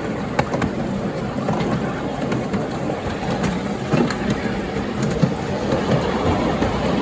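Miniature railway train running along the track, heard from aboard: a steady rumble of wheels on rail with scattered clicks.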